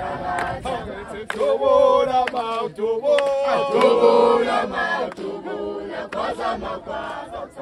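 A group singing and chanting a Zulu traditional song together, several voices holding long notes, with sharp handclaps about once a second.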